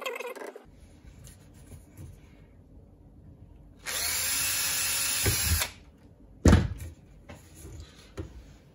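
Cordless drill running steadily for about two seconds as it bores a hole through a plastic pipe coil former, followed about a second later by a single loud knock.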